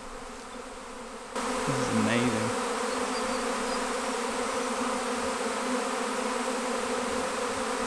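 A swarm of honeybees in flight, buzzing in a dense, steady hum. It gets abruptly louder about one and a half seconds in.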